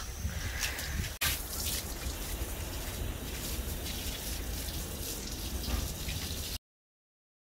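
Water running and dripping onto wet concrete, with wind rumble on the microphone. The sound breaks off briefly about a second in and cuts to silence near the end.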